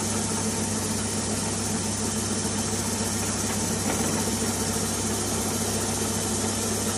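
Milling machine running with its end mill cutting an aluminium velocity stack: a steady motor hum under the even hiss of the cut.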